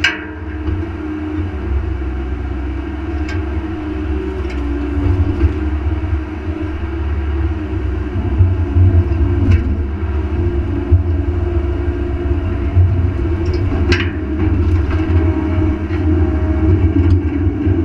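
Mini excavator's diesel engine running steadily under hydraulic load as the boom and arm move, a continuous low rumble with a few sharp clicks scattered through it.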